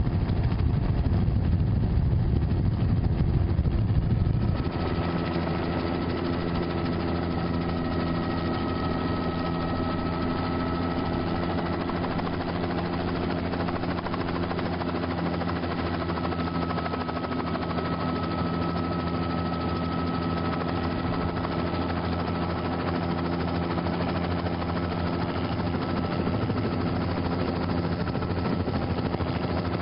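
Helicopter engine and rotor noise from the filming aircraft: a steady mechanical drone with several steady tones in it. For the first four and a half seconds it is a louder, rougher rumble, then it changes abruptly to the steadier, tonal hum.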